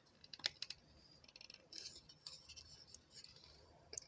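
Faint clicks and scraping of small plastic toy pieces being handled, with a quick run of little ticks about a second and a half in.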